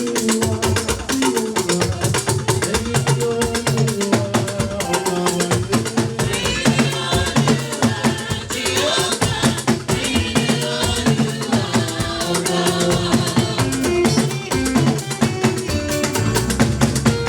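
Lively church hymn music with drums and a rattling shaker keeping a steady beat.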